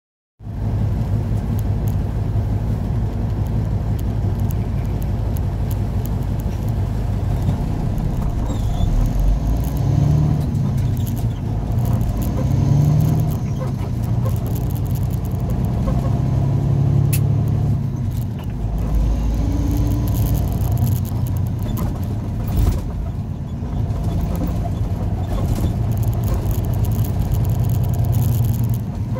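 Truck engine and road noise heard from inside the cab while driving in city traffic, the engine note rising and falling several times as the truck speeds up and eases off.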